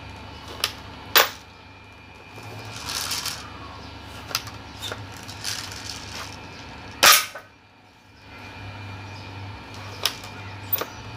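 Spring-powered airsoft pump-action shotgun being cocked and fired, giving two sharp cracks about a second in and about seven seconds in, the second the loudest. Between and after them come shorter clicks and brief rasps from working the pump.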